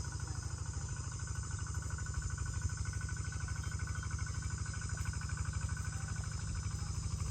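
Crickets and other insects chirping, with a fast, even trill high up and steady high-pitched buzzing. Under it runs a low, rapidly pulsing rumble.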